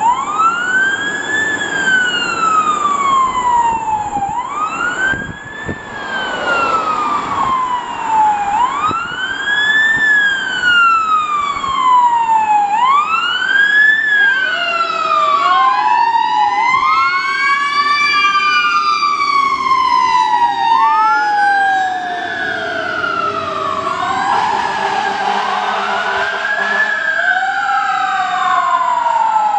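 Fire engine siren wailing: each cycle rises quickly and falls slowly, repeating about every four seconds. From about fifteen seconds in, a second siren joins with a slower, wider sweep, and the two overlap.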